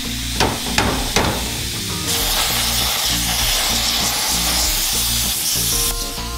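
Plasma cutter cutting steel: a loud, even hiss that starts abruptly about two seconds in and cuts off just before the end, after three sharp knocks in the first second or so.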